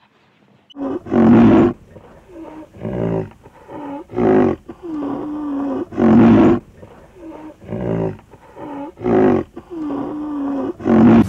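An animal calling in a steady series: loud calls about every two and a half to three seconds, each followed by a quieter call that dips and rises in pitch.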